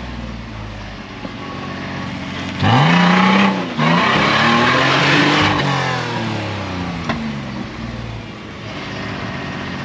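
Nissan Patrol 4WD's engine labouring up a rock step, revved hard twice in quick succession about three seconds in: the pitch sweeps up and falls back each time. It then settles back to a lower, steady working note.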